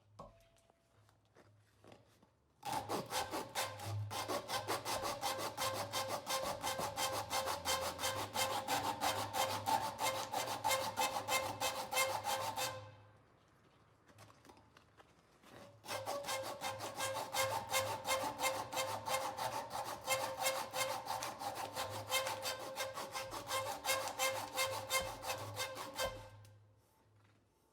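Hand filing or sawing by quick, even strokes across wood, in two runs of about ten seconds each with a pause between. A steady ring sounds through each run.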